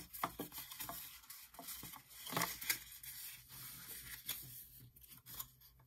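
Gray cardstock being folded by hand along its score lines: scattered rustles and rubs of the card, with a few sharper clicks as the folds are creased.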